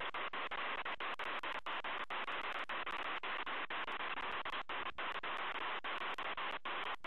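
Steady static hiss from a nest camera's low-quality audio feed, broken by frequent brief dropouts. No calls are heard.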